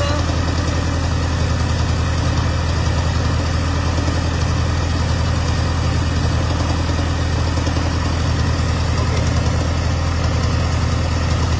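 Isuzu 4HK1 four-cylinder common-rail diesel engine running steadily at a raised idle of about 1,250 rpm.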